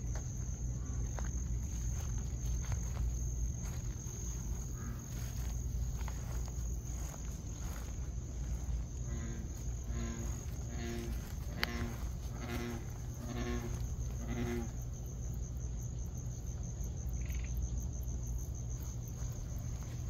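Crickets trilling steadily in a high, even pulse over a low hum. About halfway through comes a run of about six short pitched calls, roughly half a second apart.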